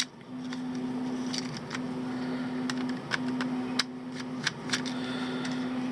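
Small electric screwdriver's motor running in stretches of about a second and a half with short breaks, backing screws out of a plastic multimeter case, with sharp clicks of the bit and screws.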